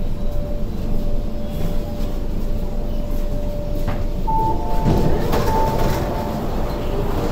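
Inside an MTR CAF K-train carriage coming to a stop: steady rumble with a steady tone, then about four seconds in the door chime beeps several times as the saloon doors slide open.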